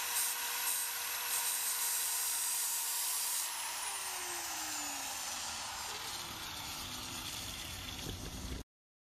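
Electric angle grinder running at full speed against the steel of a pickaxe head, in short strokes. About three and a half seconds in it is switched off, and its whine falls steadily in pitch as the disc spins down. The sound cuts off abruptly near the end.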